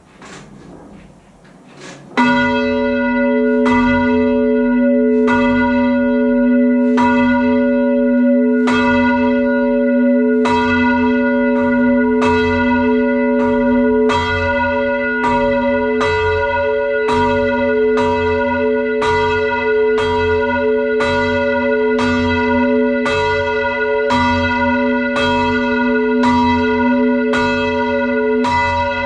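A ring of six church bells (tenor 10–2–12 cwt, in F) rung by a band of ringers. The strokes begin about two seconds in and follow one another at an even pace, each bell's ringing overlapping the next over a steady low hum.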